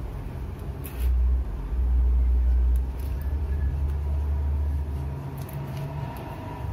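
A low rumble, strongest from about one to three seconds in, over faint rustling and crackling of fingers pressing cocopeat around a dieffenbachia cane cutting in a small pot.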